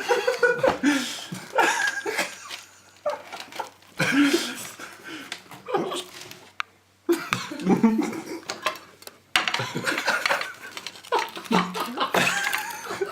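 People laughing, with plates and cutlery clinking.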